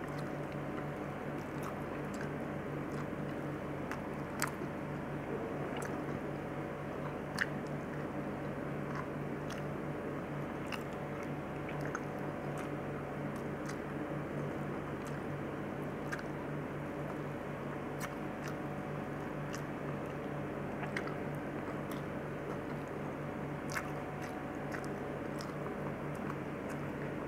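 Close-up chewing and wet mouth sounds of someone eating a soft mix of rice, macaroni and lentils by hand: scattered small clicks and smacks over a steady low hum, with two sharper clicks about four and seven seconds in.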